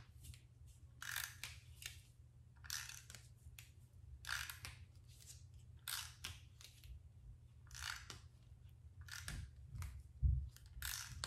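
Handheld glue tape runner drawn in short strokes around a paper ring: a dry, scratchy rasp about every second and a half as the adhesive tape rolls off onto the paper. A low steady hum runs underneath, and a soft low thump comes near the end.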